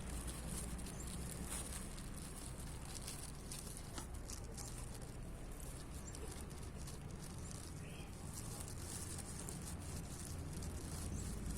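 Kittens' paws and claws pattering and scratching in light, scattered ticks as they scamper and play, over a steady low hum.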